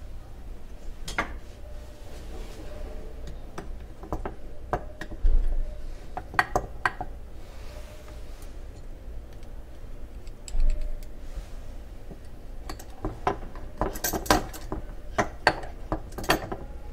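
Metal ice cream scoop clinking and scraping against a glass jar and drinking glasses as chunky apple jam is scooped out and released. There are scattered sharp clicks, thickest near the end, and a couple of dull knocks in between.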